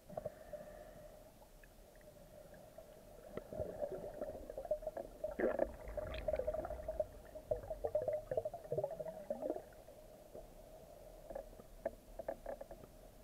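Underwater water noise heard through a camera's waterproof housing: gurgling and crackling over a steady hum. It builds up a few seconds in, is busiest through the middle, and thins out near the end.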